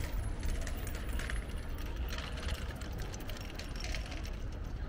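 Street ambience on a cobbled city square: a steady low rumble with scattered light clinks and rattles.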